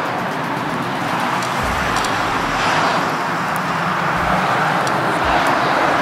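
Road traffic going by: a steady rushing noise of a passing vehicle that swells slightly and eases off, with a few faint ticks.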